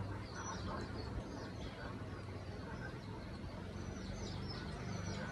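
Small birds chirping, many short high calls, over a steady low hum of background noise.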